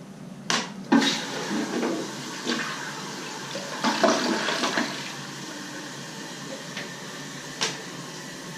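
Toilet flushing: a click or two of the handle in the first second, then water rushing from the tank into the bowl, easing after about five seconds into a steadier, quieter hiss.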